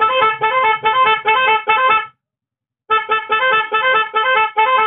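Twin high and low motorcycle electric horns playing through a melody-maker cutout: a quick tune of short beeps that change pitch, about two to three a second, which stops for under a second midway and then starts again. It is a test of the freshly wired horns, now sounding with the cutout's separate battery supply wire connected.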